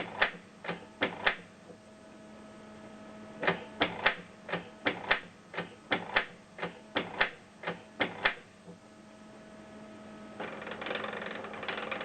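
Canon Pixma MG2470 inkjet printer running its nozzle-cleaning cycle: its mechanism clacks sharply in two runs of about two clacks a second over a steady motor hum, then about ten seconds in switches to a continuous rattling whir.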